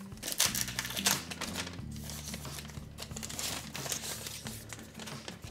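Thin plastic packaging wrap crinkling and rustling as it is pulled off by hand, in irregular swells.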